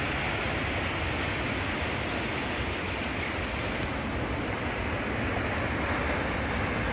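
Ocean surf breaking and washing on a rocky sand beach: a steady, even rush with no separate wave crashes standing out.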